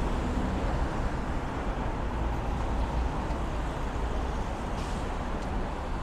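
Steady rumble of traffic on a busy city street.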